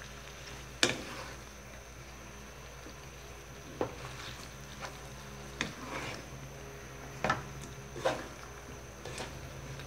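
Wooden spatula stirring sticky glazed fried sweet potato slices in a nonstick wok, knocking against the pan in several sharp taps over a low steady hum.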